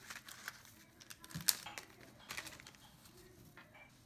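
Light clicks and rattles of the small metal parts of a Hi-Capa airsoft pistol's recoil assembly, a recoil spring and guide rod, being handled in gloved hands, with rustling of a paper mailer under them. One sharper click comes about a second and a half in.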